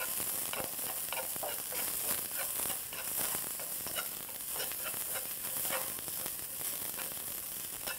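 Julienned burdock root stir-frying over medium heat in a pan of cooking oil and perilla oil, sizzling steadily, with frequent light clicks of long chopsticks tossing it against the pan.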